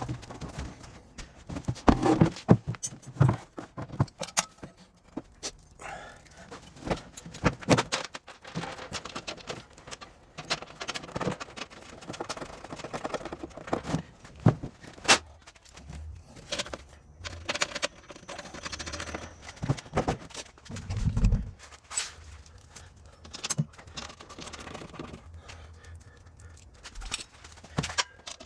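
Hand tools and small metal parts being handled: irregular clinks, knocks and scrapes, with a heavier low thud about two-thirds of the way through.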